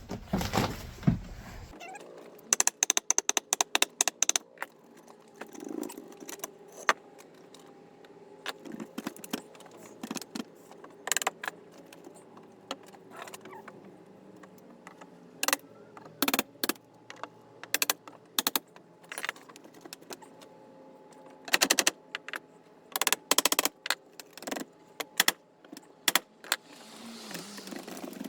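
Hand tools working on a wooden boat deck: irregular sharp metallic clicks and knocks, some in quick runs of many strokes, with pauses between.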